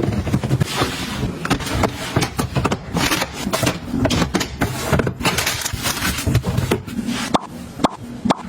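Close-miked handling sounds of items being restocked: a rapid series of clicks, taps and knocks with rustling and scraping in between.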